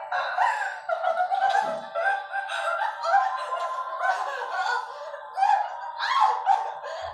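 Soundtrack of a TV drama playing through a small monitor speaker: music with a voice over it, thin-sounding with no bass.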